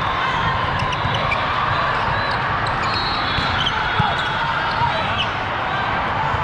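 Steady din of a busy volleyball gym: a volleyball being hit and bouncing on the court, scattered short knocks and squeaks, over a haze of crowd voices.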